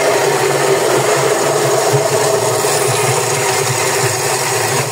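Homemade feed chopper built into a washing-machine cabinet, driven by a washing-machine motor, running with a steady hum and whirr.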